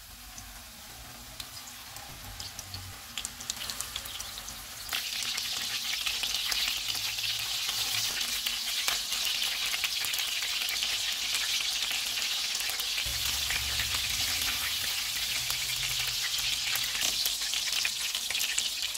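Beef mince kababs shallow-frying in hot oil in a nonstick pan: a steady sizzle that gets louder about five seconds in and holds.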